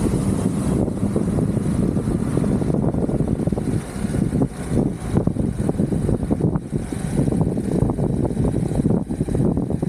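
Exway Atlas Pro 4WD electric skateboard riding along: a steady low rumble of wheels rolling over rough road with wind buffeting the microphone, and scattered knocks from bumps.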